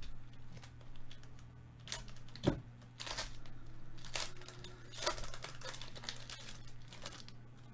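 Foil wrapper of a Panini Prizm baseball card pack being torn open and crinkled by gloved hands: a series of crackling rustles, the sharpest about two and a half seconds in.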